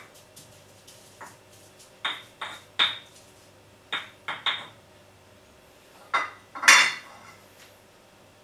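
Hard kitchenware clinking and knocking against a bowl in short, irregular groups of strikes as the sambal is pounded and mixed, with a louder clatter of dishes a little before the end.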